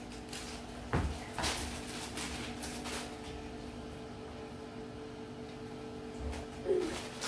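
A crisp packet being handled, with scattered short rustles and a soft knock about a second in, over a steady low electrical hum in the room.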